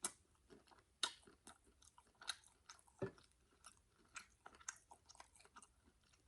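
Faint close-up chewing and mouth sounds of a person eating crab meat: irregular soft wet clicks and smacks, a few a second.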